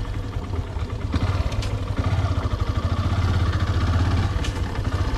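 Motorcycle engine running at low speed while riding a muddy dirt track, a steady low pulsing drone, with a few sharp knocks over it.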